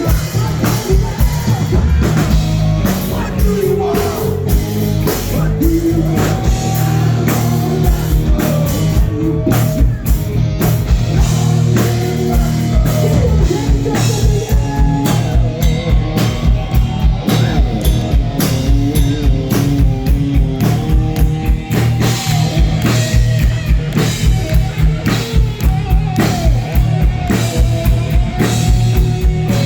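Live rock band playing: drum kit keeping a steady, busy beat under guitar, bass and a singing voice, loud throughout.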